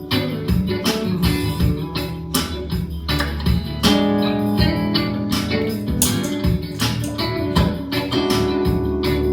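Electric guitar, a 2021 Squier Classic Vibe with upgraded parts, played with strummed chords and picked notes, heard straight from the guitar rather than through a microphone.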